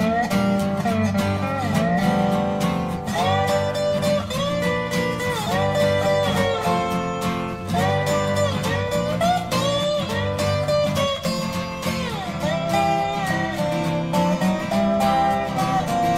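Background music: a guitar-led song in a country style with a steady beat.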